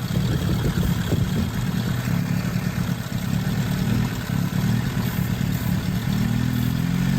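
Toyota 22R four-cylinder engine idling steadily while it has vacuum leaks.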